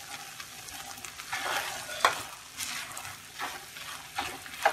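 Wooden spatula stirring cooked vermicelli upma in a nonstick kadai, with uneven scraping and shuffling strokes and two sharp knocks of the spatula against the pan, about two seconds in and near the end.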